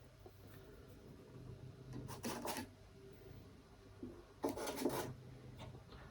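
Two short scraping, rubbing sounds of parts being handled and slid on a control-panel backplate, about two seconds and four and a half seconds in, over a faint steady low hum.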